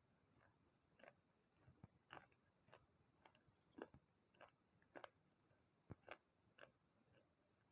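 Faint, sharp crunches of baked clay pieces being bitten and chewed, roughly two a second at an uneven pace.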